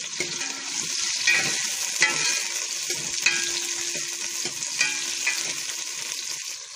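Sliced onions sizzling in hot cooking oil in a steel pot, stirred with a metal ladle that clinks and scrapes against the pot several times.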